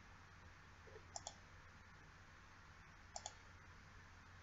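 Computer mouse double-clicking twice, each a quick pair of sharp clicks, about a second in and again a couple of seconds later, over a faint low hum.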